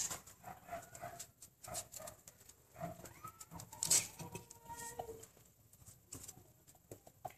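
A cat licking yogurt from a plastic yogurt pot and off its dipped paw: faint, irregular wet clicking licks. A short thin tonal sound is also heard about three to four seconds in.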